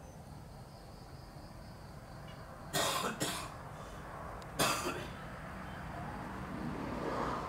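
A person coughing: a quick pair of coughs, then one more about a second and a half later.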